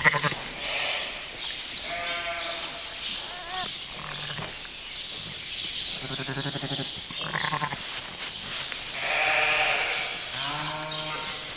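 Sheep bleating, ewes and newborn lambs calling again and again, some calls low and some higher-pitched.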